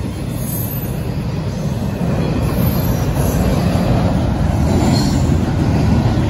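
Canadian Pacific double-stack intermodal container train rolling past: a steady rumble of wheels on rail that gets a little louder about two seconds in, with a few faint, brief wheel squeals.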